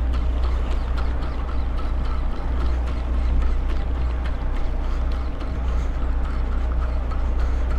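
Boat engine running steadily, a constant low rumble under a haze of wind and water noise, with scattered light clicks and knocks.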